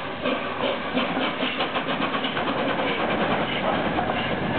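LNER Peppercorn A1 Pacific steam locomotive 60163 Tornado moving slowly past: steam hiss with a quick, regular beat from the moving engine.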